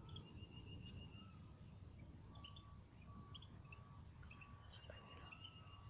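Faint bird calls: a short trill, scattered chirps, and a regular string of short, even notes from about two seconds in. Under them runs a low, steady rumble.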